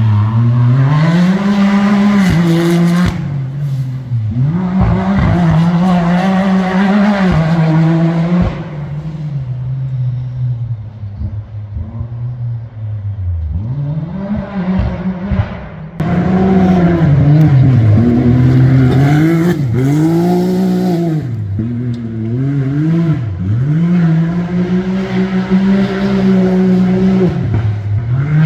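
Competition safari off-road racing vehicle's engine revving hard, its pitch rising and falling every second or two through gear changes and lifts. It goes quieter for several seconds near the middle, then is suddenly loud again.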